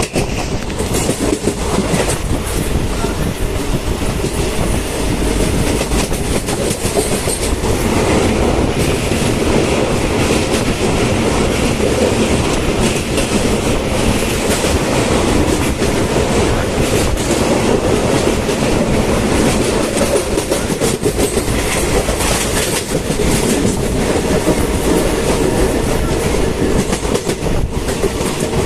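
Krishna Express passenger train running along the track: a loud, steady rumble with many short, irregular knocks from the wheels.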